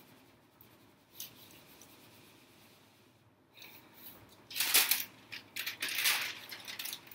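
Greaseproof paper and fused plastic-bag sheet rustling and crinkling as they are handled, quiet at first, then several loud bursts from about four and a half seconds in.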